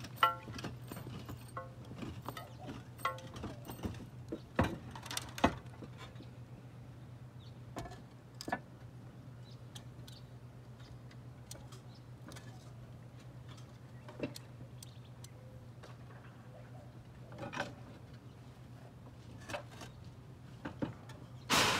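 Occasional sharp clinks and knocks from work on a clay tile roof, with tiles and tools being handled, over a steady low hum.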